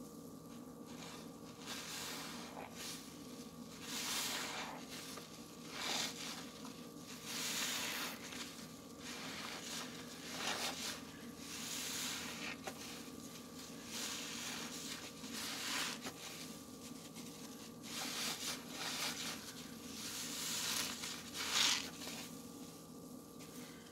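Wet sponges full of pine cleaner suds being squeezed by hand over and over, a foamy squelch about every one and a half to two seconds.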